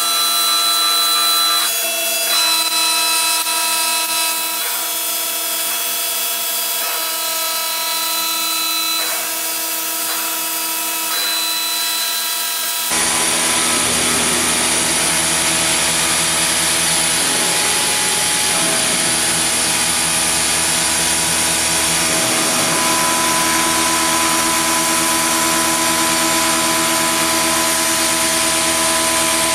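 CNC benchtop mini-mill running an automated cut in aluminum with a quarter-inch high-speed steel end mill: a steady machine whine whose tones shift in pitch every few seconds as the moves change. About 13 seconds in, a loud steady hiss of compressed air from a blow gun aimed at the cutter joins it, clearing chips from the cut.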